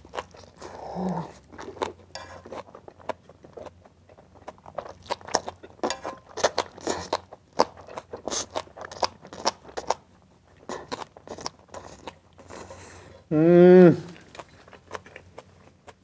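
Close-miked wet, crunchy chewing of saucy black-bean noodles with green onion kimchi and fried egg, with many small crackling bites. About thirteen seconds in, a short hummed "mmm" from the eater.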